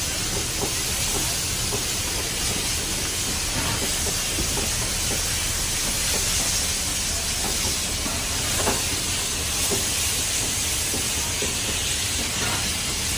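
Steady hiss and rumble from steam locomotive 5917's cab, with a few faint knocks; the clearest comes a little past halfway.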